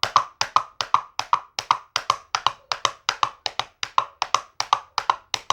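Two plastic aerosol caps clapped together in quick uneven pairs, about seven hollow clicks a second, imitating a horse's hooves at a gallop.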